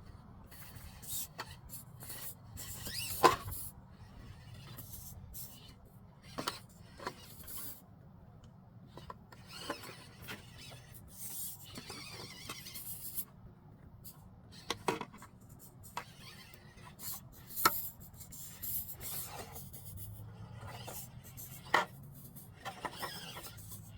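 Axial SCX24 micro RC crawler working over rock: scattered scrapes and clacks of its rubber tyres and plastic body against stone, with a few sharp knocks, the loudest about three seconds in.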